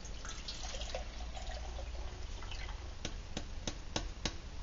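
Water poured from a bottle into a Snow Peak 900 titanium pot, a soft steady pour. About three seconds in, it gives way to a quick run of sharp clicks.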